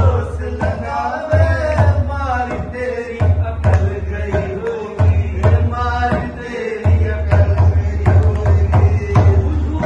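Devotional kirtan: a man's voice sings a chant melody over a two-headed mridanga drum beating a steady rhythm.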